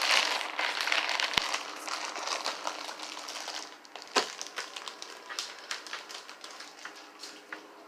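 Plastic food packaging crinkling as it is handled, fading after about three seconds into scattered light clicks, with one sharp knock about four seconds in.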